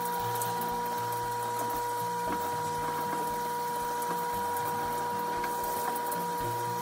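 Handheld bathroom shower running as a cat is rinsed. There is a steady two-tone whine over a faint hiss of spray and a regular low pulsing.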